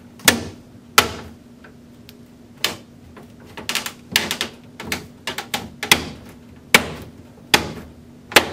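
Plastic control panel housing of an Amana bottom-freezer refrigerator being pushed up into the compartment ceiling: a string of sharp, irregular plastic clicks and knocks as it is pressed against its clips and alignment tabs to snap it home.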